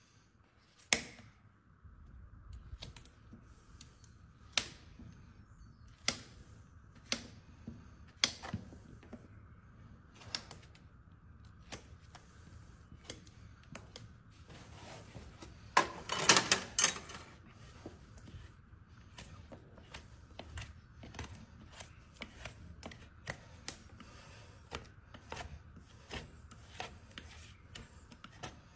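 Hoof nippers snapping through a horse's hoof wall: single sharp cracks a second or more apart, a loud flurry of cuts about halfway through, then quicker, lighter clicks of trimming.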